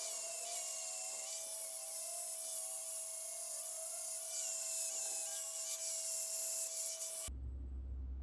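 A power tool's abrasive disc grinding on steel, a dense hiss over a steady motor whine, that cuts off abruptly about seven seconds in and gives way to a low hum.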